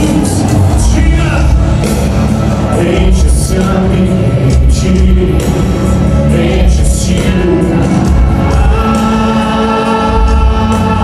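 Loud live Christian worship music over a large hall's sound system: singing over a band with a heavy bass and drums.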